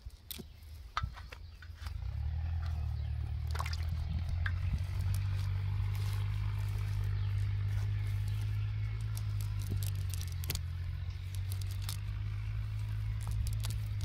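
Fishing net mesh and wet weeds and leaves rustling and crackling as they are picked apart by hand, with a steady low rumble starting about two seconds in and carrying on to the end.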